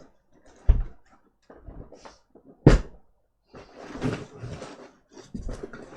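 Loose laptop parts being handled: two sharp knocks about two seconds apart, the second louder, then rustling and light clattering.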